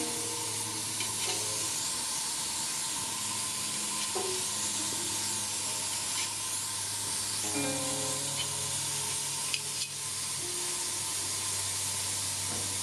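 Turnip wedges sizzling steadily on a hot ridged grill pan over a gas flame, with a few light clicks of metal tongs against the pan as more wedges are set down.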